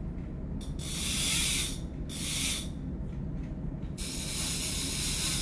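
Hissing noise, in two short bursts in the first half and then steadily from about four seconds in, over a steady low machinery hum.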